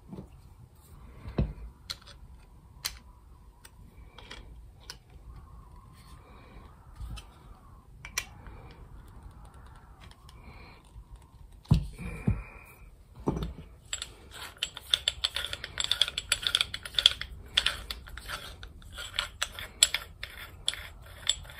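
Small clicks and knocks of a hand-held metal tool being handled. About two-thirds of the way through they turn into a dense run of rapid clicking and rattling.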